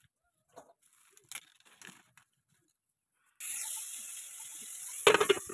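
Sliced bitter gourd hitting hot oil in an aluminium kadai and starting to sizzle suddenly about three and a half seconds in, after a few faint handling knocks. A brief louder clatter comes near the end over the steady sizzle.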